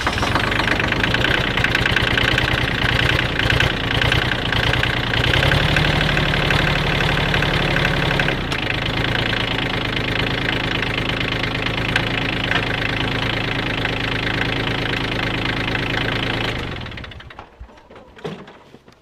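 Kioti compact tractor's diesel engine idling after an oil and filter change, run briefly so the fresh oil fills the new filter. Its note shifts for a few seconds midway, and it is shut off about three seconds before the end, running down over about a second.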